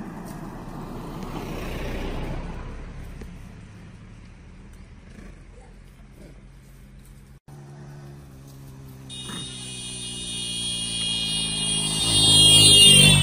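A car passing on the road, its noise swelling and fading over the first few seconds. After a short break about seven seconds in, steady sustained tones of background music come in and build to their loudest near the end.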